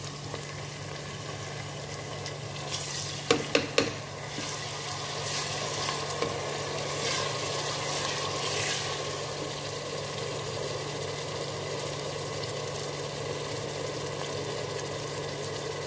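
Sliced onions and whole spices sizzling in hot oil in a pressure cooker, with ginger-garlic paste just added, while a wooden spoon stirs and scrapes through them. Three or four quick knocks come about three seconds in, and the stirring grows louder for a few seconds after.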